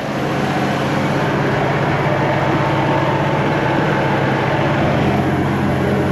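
Case IH Steiger 470 tractor's diesel engine running steadily, a low hum under a constant rushing noise, as it works pushing snow.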